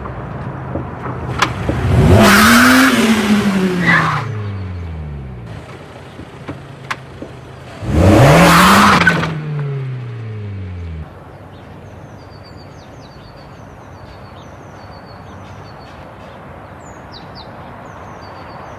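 Volkswagen Polo GTI engine revved hard twice, each rev rising sharply and then falling away, with a loud screech of tyres on each. The engine then stops and only a steady background with birds chirping remains.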